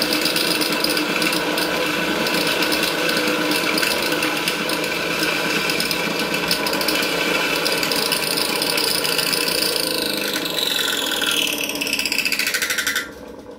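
Portable electric dry mill grinder running with a steady, even whine, then winding down from about ten seconds in, its pitch falling until it cuts out about thirteen seconds in.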